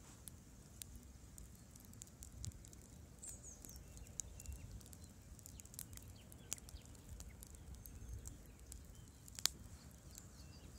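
Wood campfire crackling faintly with scattered pops, one sharper and louder pop about nine and a half seconds in. A bird chirps faintly about three seconds in.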